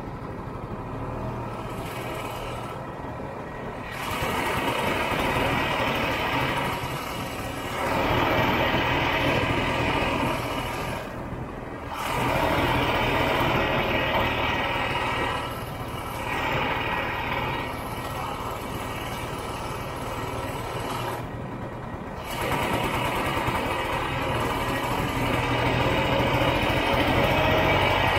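Snowmobile engine running while the sled is ridden, swelling louder several times as the throttle is opened and easing back between.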